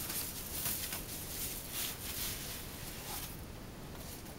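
Soft plastic wrapping bag crinkling and rustling in a series of swells as a camera body is pulled out of it. The rustle dies down about three seconds in.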